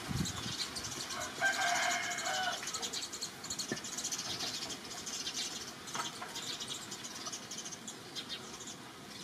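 A rooster crows once, about a second and a half in, a single pitched call lasting just over a second that wavers at its end. Steady high-pitched chirping of birds and insects runs underneath.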